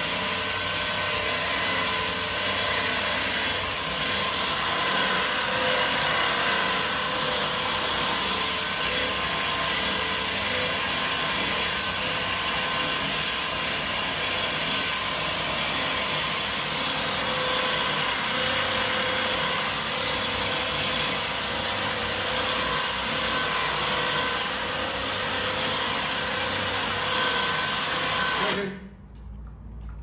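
Harbor Freight Badland 2500 12-volt electric winch running steadily under load as it reels in its line, a very loud motor-and-gear whine with a few steady tones in it. It stops suddenly about a second and a half before the end, leaving a few light clicks.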